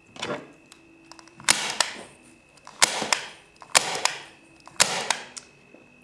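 Hand-operated staple gun fired four times, about one shot a second, driving staples through Pellon interfacing into softboard: each a sharp snap that trails off briefly. A short rustle of the interfacing being folded comes just before the first shot.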